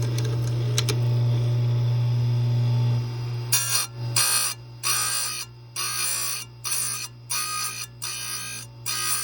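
Chain grinder for square-grinding a chainsaw chain: the motor hums steadily, then from about three seconds in the wheel grinds the chain's cutters in about eight short bursts, light taps a fraction of a second each with brief pauses between.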